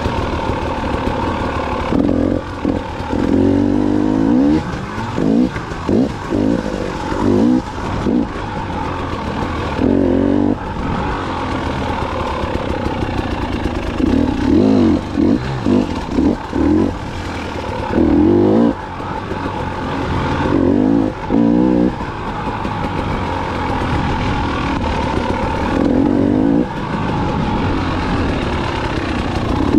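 KTM 300 XC-W two-stroke dirt bike engine under way on a trail, revving up and back down in short throttle bursts every second or two.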